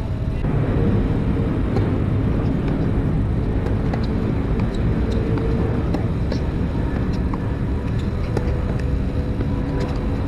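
Steady low outdoor rumble with a few sharp ticks from tennis racquets striking the ball during a hard-court rally.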